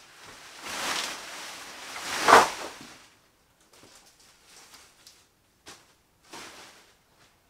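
An armful of freshly cut green corn stalks rustling as it is carried in, then dropped onto a plastic tarp with a loud crash of leaves a little over two seconds in. A few softer rustles follow as the stalks are shifted about.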